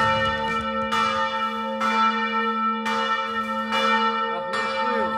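A church bell tolling, struck about once a second, each stroke's tone ringing on into the next.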